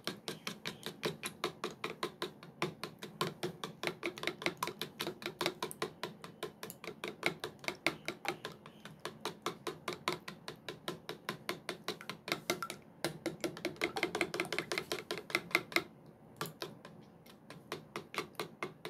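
Metal spoon beating raw eggs in a plastic bowl: rapid clicks and taps of the spoon against the bowl, about four or five a second, with a short pause near the end.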